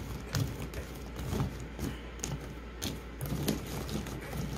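Irregular light clicks and knocks as silicone-tipped kitchen tongs move wet chestnuts around on a plate of hot water.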